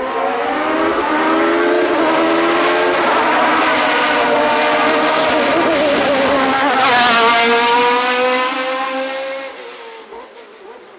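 Hillclimb race car engine at high revs, accelerating hard with its pitch climbing as it approaches, loudest as it passes about seven seconds in, then fading quickly away near the end.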